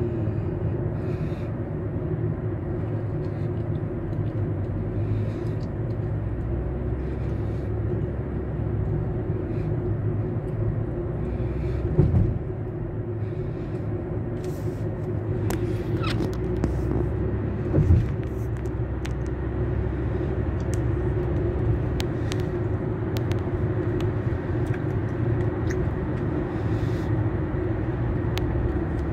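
Steady car road noise heard from inside the cabin while driving: a constant low rumble of tyres and engine. Two brief low thumps stand out, about twelve and eighteen seconds in.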